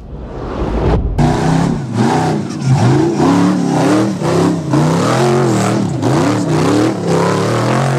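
Rock bouncer buggy engine revving up and down again and again as the buggy crawls over rocks, fading in over the first second.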